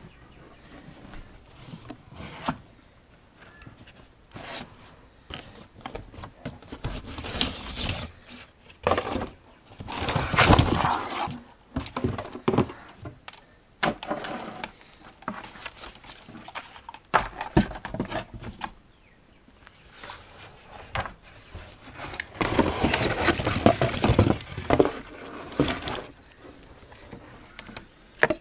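Irregular handling noises: rustling, scraping and knocks as the electric chainsaw sharpener is taken from its box and moved about on the bench, with longer stretches of rustling about ten seconds in and again a few seconds before the end.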